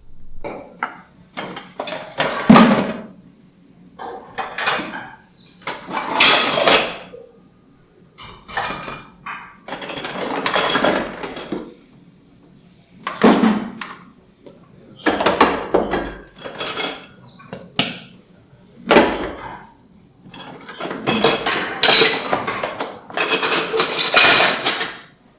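Kitchen utensils scraping and clattering against pots and dishes in a dozen or so short, separate bursts.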